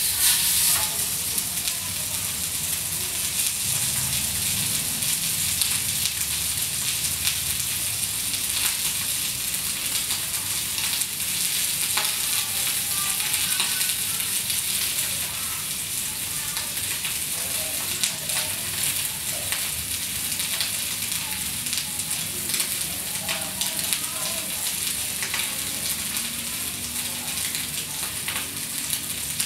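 Seasoned pork steak searing in a hot rectangular metal pan: a steady sizzle of fat and juices with small scattered crackles.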